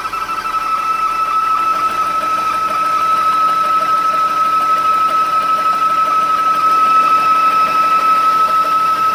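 Porsche 986/996 flat-six engine idling with a steady, high-pitched whistle that holds one pitch, the noise of a failed air-oil separator.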